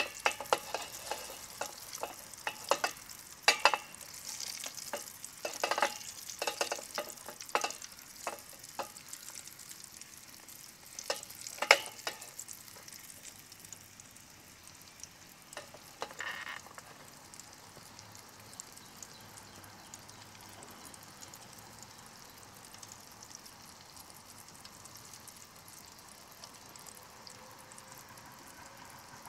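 Egg-and-flour coated pork chop deep-frying in hot peanut oil, the oil sizzling with frequent sharp crackles and pops. After about fifteen seconds the pops thin out and it settles into a quieter, steady sizzle.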